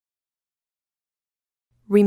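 Dead silence; the picture has no sound of its own. A narrator's voice begins just at the end.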